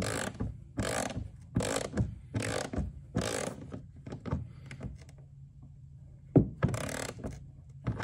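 Ratcheting socket driver clicking in even back-and-forth strokes, about one stroke a second, as it threads a button light into a kayak's hull. The strokes grow weaker after about four seconds. Near the end come a sharp knock and one more stroke.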